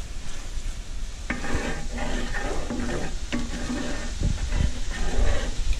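Wooden spoon stirring and scraping through butter and white wine sizzling as it reduces in a stainless skillet and a cast-iron skillet, with a few light knocks of the spoon against the pan.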